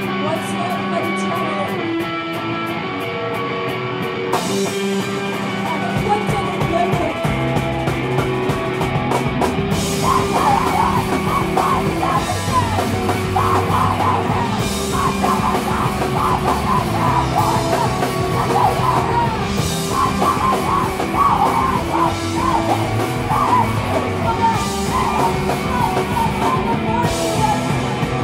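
Live screamo band playing loud: electric guitar alone at first, drums coming in about four seconds in and bass about two seconds later, then screamed vocals joining about ten seconds in and carrying on over the full band.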